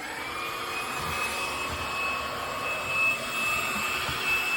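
Ljuren cordless stick vacuum's motor spinning up after being switched on: a whine rises in pitch over the first second or so, then runs steady with a rush of air.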